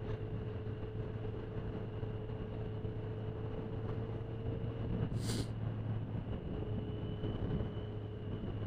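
Motorcycle engine running at a steady cruise under road and wind noise, picked up by a helmet-mounted camera. About five seconds in there is a short hiss, and the engine note eases off for a second or so after it.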